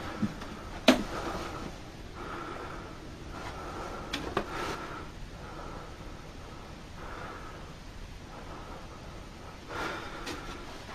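Breathing, a run of uneven breaths close to the microphone, with one sharp click about a second in and a few softer knocks around four seconds.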